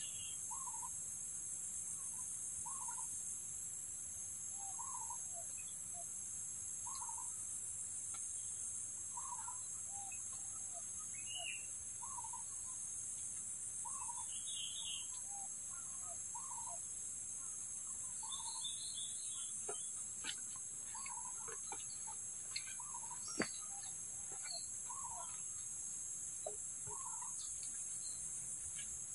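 A steady, high-pitched insect chorus of crickets, with a bird's short, soft calls repeating every second or two and a few higher chirps. A handful of light clicks and taps fall in the second half.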